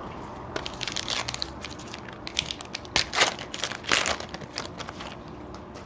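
Crinkling and crackling of a baseball card pack wrapper and cards being handled, in short irregular bursts that are busiest in the middle.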